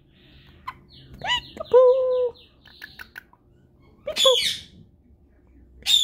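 Indian ringneck parakeet calling: a run of quick, soft chirps, about six a second. Two loud calls break in, one about a second in and one a little past four seconds. Each falls steeply in pitch and then settles into a held tone.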